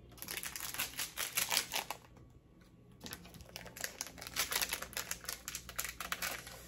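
Small plastic ramen seasoning packet crinkling with rapid clicks as it is handled, in two spells: for about the first two seconds, then again from about four seconds in as it is worked open with both hands.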